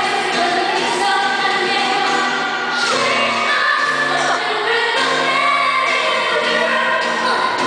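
Several pop singers singing together live in harmony, amplified through an arena's sound system.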